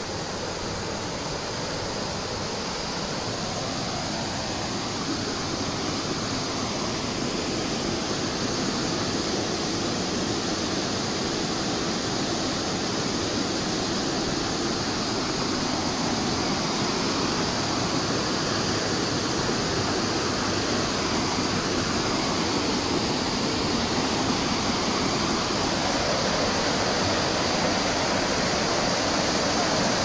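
Waterfall and the stream cascading over boulders below it: a steady rush of falling water that grows gradually louder.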